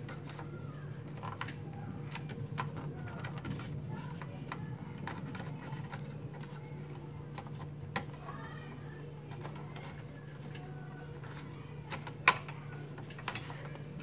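Scattered clicks and knocks of hands handling cables and parts inside an open desktop computer case, with one sharper click about twelve seconds in, over a steady low hum.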